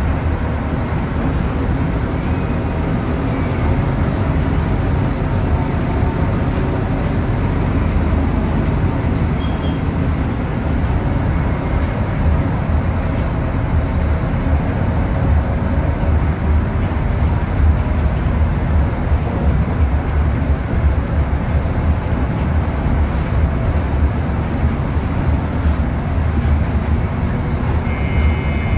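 Cabin sound of a Scania K280UB city bus under way: its Scania DC09 five-cylinder diesel running steadily, with road and body noise. A short electronic beep sounds right at the end.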